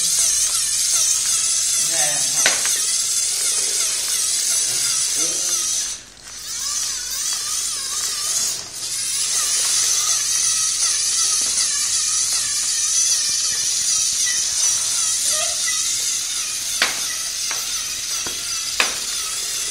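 Small electric gear motors of Lego Mindstorms NXT robots whirring as the robots drive and shove each other, with a few sharp knocks of plastic parts.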